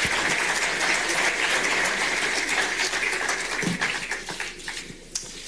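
Audience applauding, a dense clapping that fades out near the end.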